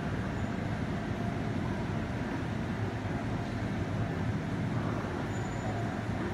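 Machinery of an automatic fresh pho noodle production line running: a steady, even mechanical rumble with no breaks or changes.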